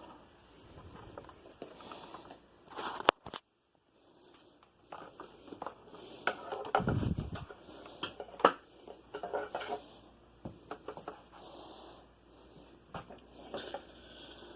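Irregular handling noises: scattered clicks, knocks and scrapes of equipment and cables being moved, with one sharp click about three seconds in.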